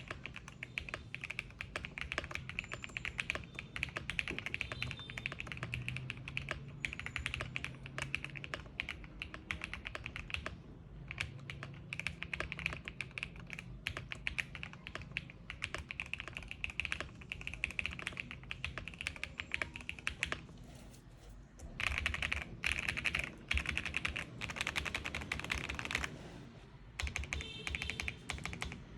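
Typing on a Lucky65 V2 65% mechanical keyboard built with full foam dampening: a dense, continuous run of keystrokes. It pauses twice briefly in the second half, with a louder, faster flurry between the pauses.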